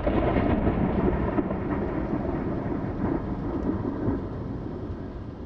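Thunder rumbling, loud at the start and fading slowly.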